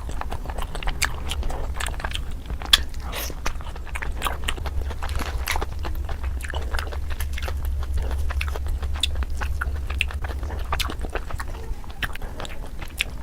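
Close-up biting and chewing of tandoori chicken: a continuous run of irregular wet clicks and crunches.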